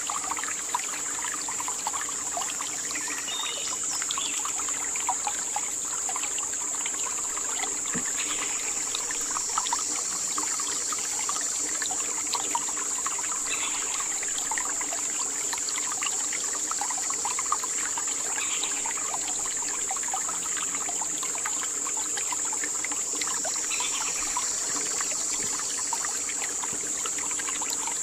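Forest ambience: a steady high-pitched insect drone over a dense, fine crackle, with faint short chirps every few seconds.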